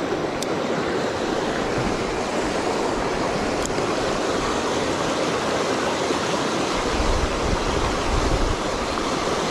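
Steady rush of a fast mountain river pouring over a white-water riffle, with a brief low rumble about seven seconds in.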